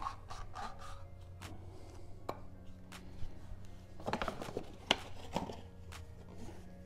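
Scattered clicks, taps and rustles of hands handling oil-change parts: an old paper oil filter element pulled off the BMW N54's oil filter housing cap and set down, then a cardboard filter box picked up. The clicks bunch together a little past halfway.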